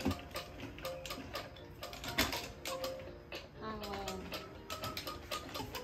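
Plastic baby toys clicking and clattering as they are handled, with irregular sharp clicks throughout, over soft background music.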